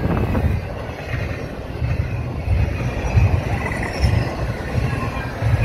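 Intermodal freight cars of a CSX train rolling past on steel wheels: a steady rumble that swells about once a second. A faint high wheel squeal comes in twice.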